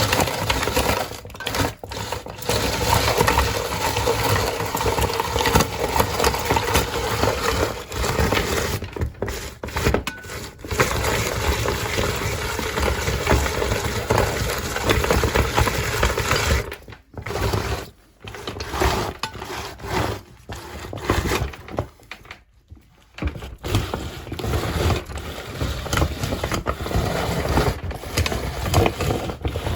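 Meat grinder crushing ice, a dense grinding and cracking with a motor hum, pausing briefly about two-thirds of the way in.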